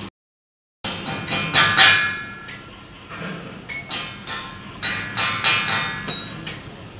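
Metal striking metal in an irregular run of sharp knocks and clinks, many of them ringing on afterwards, from work on a steel shaft and bearing housing in a welded steel machine frame. The run starts after a brief silence in the first second.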